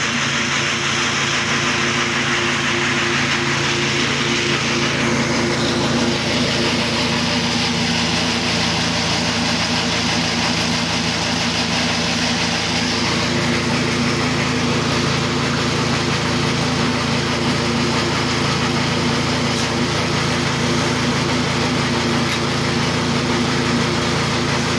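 A motor running steadily: a continuous mechanical drone with a low, even hum.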